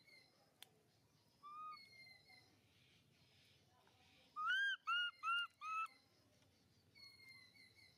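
Baby macaque giving high, squeaky calls. Four short calls that rise and fall come in quick succession about halfway through, with fainter calls before and near the end.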